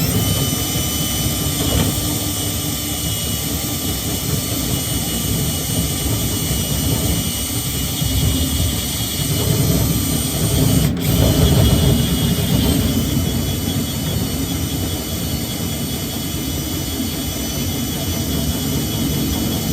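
Electric power drill running steadily under load, drilling a mounting hole through the truck bed for a toolbox.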